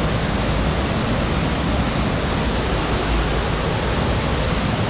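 Steady, unbroken rush of water from an underground stream and waterfall inside a cave passage.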